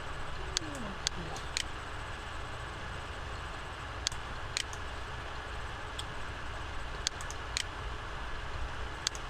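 Scattered single clicks of a computer mouse, about one a second at irregular intervals, over a steady hiss and low hum.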